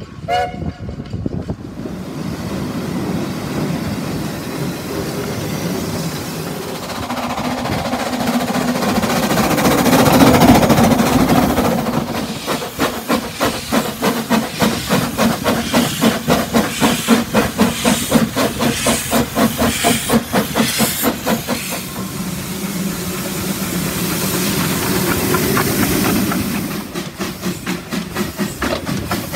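Narrow-gauge steam locomotives at work. A long hiss of escaping steam swells to its loudest about ten seconds in. Then come quick, even exhaust chuffs as a locomotive pulls away, a steadier hiss, and chuffing again near the end.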